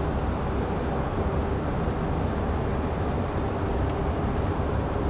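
Steady low background rumble with a faint constant hum, typical of machinery or ventilation noise, and a few faint ticks. No distinct wiping strokes stand out.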